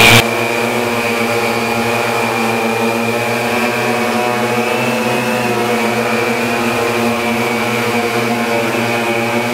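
Sky-Hero Spy 750 Y6 hexacopter hovering on 17-inch propellers, its motors and props giving a steady buzzing drone whose pitch wavers slightly as the pilot corrects. The craft is carrying more than the 6.5 kg maximum for its DJI Naza flight controller.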